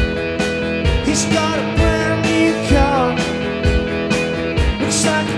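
Rock band playing live: electric guitars over a steady drum beat.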